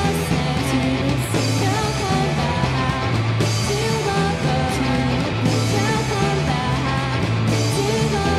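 Background rock music with a sung vocal and guitar over a repeating bass line, at a steady loud level.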